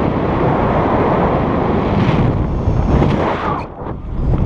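Loud wind buffeting the pole-mounted action camera's microphone on a tandem paraglider in flight, rushing hard as the wing swings through steep banked turns; it dips briefly near the end before rising again.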